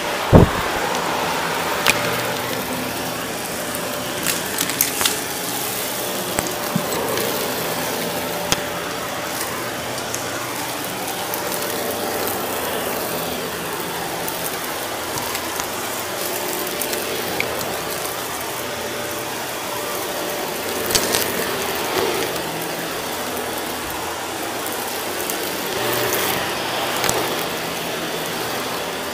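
Shark Navigator upright vacuum running over carpet, its steady motor drone broken by frequent crackling and clicking as crunchy debris is sucked up, with one sharp loud crack about half a second in.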